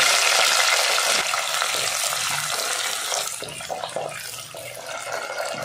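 Shallots and fresh curry leaves sizzling in hot oil in a clay pot, loud at first and dying down over a few seconds. About three seconds in, a wooden spatula stirs them with a few light scrapes.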